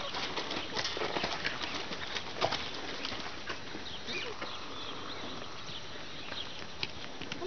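Appaloosa horse's hooves striking packed dirt and gravel as it is led on a halter: quick, uneven hoofbeats for the first few seconds that thin out as it settles into a walk.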